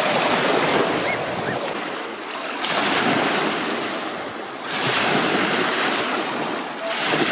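Small waves washing up onto a sandy shore, each surge of foaming water coming in about every two seconds.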